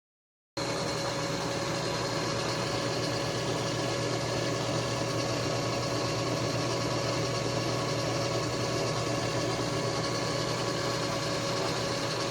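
Milling machine running steadily, with a constant whine over its motor noise, starting abruptly about half a second in.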